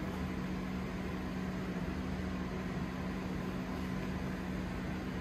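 A fan running steadily: an even hiss with a low motor hum underneath, unchanging throughout.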